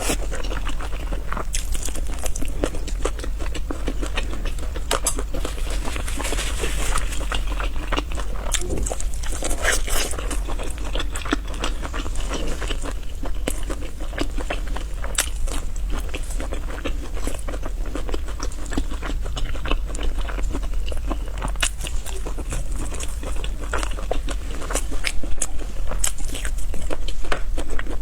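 Close-miked eating sounds of a person chewing and biting spicy noodles and chicken: a continuous run of wet chewing with many small, sharp clicks and crunches.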